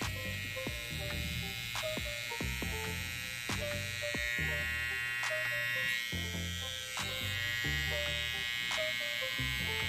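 Jucai Pro F78 cordless hair trimmer, a Babyliss FX Skeleton replica, switched on and running steadily with a high, even buzz from its motor and cutter blade.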